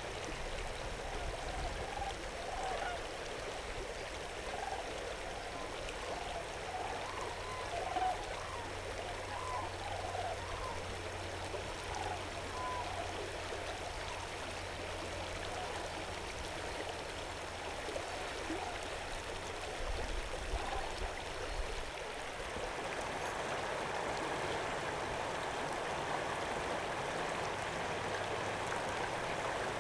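Yampa River water flowing, a steady rushing stream sound with a scatter of short notes over the first twenty seconds. About two-thirds of the way in, the water sound becomes louder and fuller.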